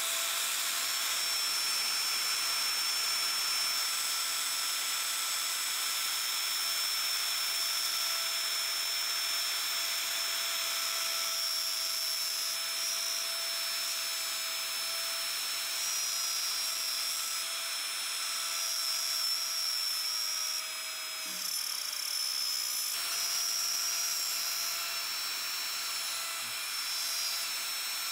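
DongCheng DMR05-12 wood router, 1240 W and rated at 24,000 rpm, running at full speed with a steady high whine as its bit cuts into the wood. About three-quarters of the way through, the whine drops briefly and then comes back.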